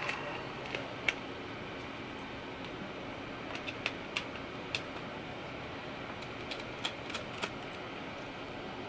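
Small screwdriver working the tiny screws that hold the LCD panel in a laptop display lid: scattered light metal clicks and ticks in small clusters over a steady background hiss.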